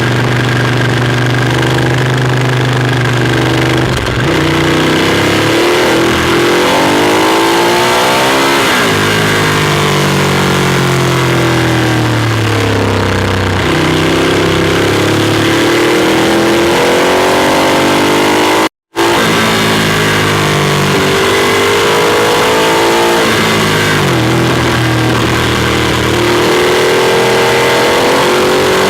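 Ducati Monster 821's Testastretta V-twin heard from on board while riding, the revs repeatedly climbing and dropping through acceleration, gear changes and slowing. A split-second silent gap comes a little after the middle.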